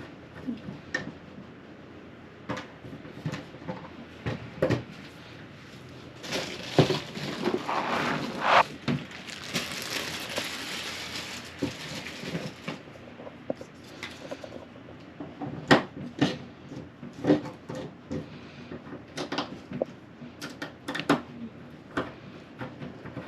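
Hand work on a suitcase wheel assembly: scattered clicks and knocks of small tools, screws and plastic wheel parts being handled, with a stretch of about six seconds of rustling noise in the middle.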